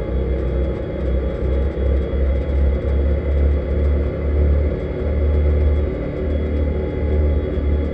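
Jimco desert-racing buggy at speed, heard on board: the engine running under load, with a heavy low rumble that pulses unevenly.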